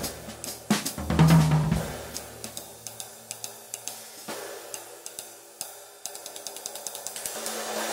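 19-inch Bosphorus Turk flat sizzle ride played with a drumstick. The first two seconds are a drum kit fill with toms and bass drum. After that comes a steady run of evenly spaced ride strokes, and near the end the cymbal's sizzle wash swells louder.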